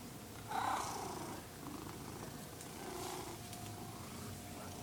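A domestic cat making soft sounds, with a short call about half a second in and a weaker one around three seconds in.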